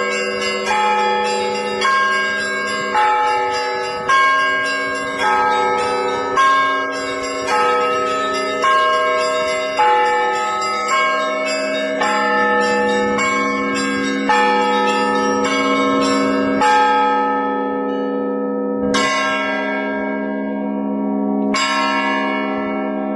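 Church bells ringing: several bells struck together about once a second, each left to ring on. The strikes thin out near the end to two single strokes a couple of seconds apart.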